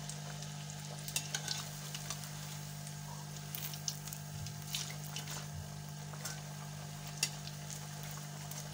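Batter-coated aloo tikkis (potato patties) deep-frying in hot oil in an aluminium karahi: a steady sizzle, with scattered sharp pops and clicks as a wire-mesh skimmer turns and lifts the patties against the pan.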